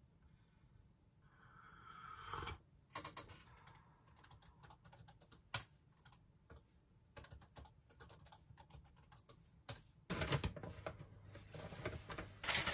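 Faint typing on a computer keyboard, irregular key clicks, followed near the end by a louder rushing noise.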